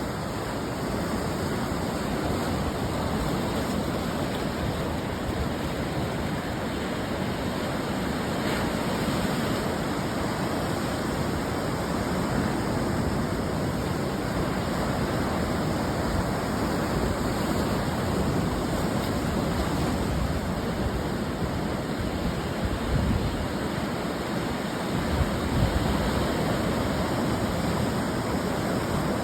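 Ocean surf washing on the shore: a continuous rushing wash of breaking waves that swells and eases gently, with a couple of heavier low surges late on.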